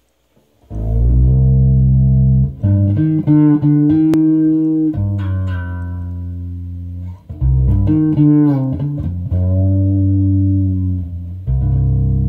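Fretless Chapman Stick tapped with both hands: sustained deep bass notes that slide smoothly between pitches, starting about half a second in.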